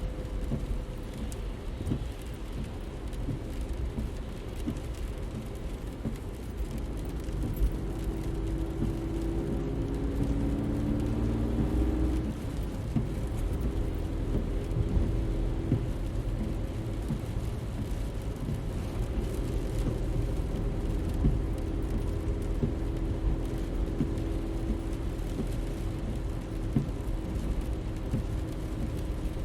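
A car running and driving: a steady low rumble of engine and road noise, with a few short rising engine tones about eight to twelve seconds in.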